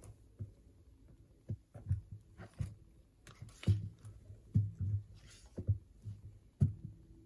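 Foam Crocs Hiker Xscape clogs stepping and shuffling on a wooden floor: a series of soft, uneven thuds with light scuffs and rustles.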